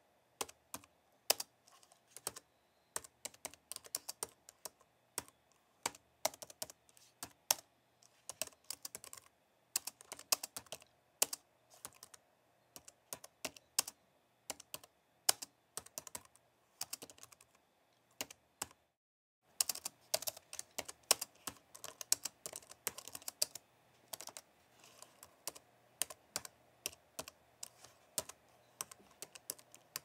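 Fingers typing on a low-profile white computer keyboard: a fast, irregular run of light key clicks, with a short break of complete silence about two-thirds of the way through.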